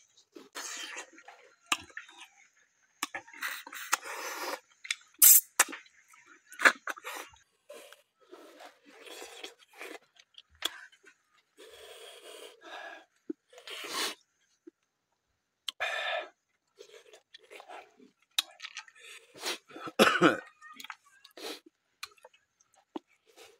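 Close-up eating sounds of a man eating cooked snails by hand: short, sharp sucks and slurps at the shells, chewing, and small clicks of shell, coming in irregular bursts.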